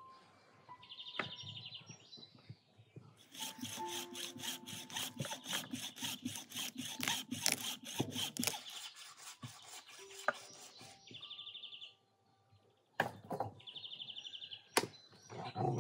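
A hand saw cutting through meat on the bone, rapid even rasping strokes for about five seconds, starting about three seconds in. Short bird trills come before and after, and there are a couple of sharp knocks near the end.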